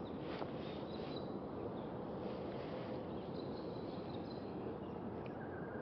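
Steady outdoor background hiss on a creek, with a few faint, high, short chirps and a faint click about half a second in.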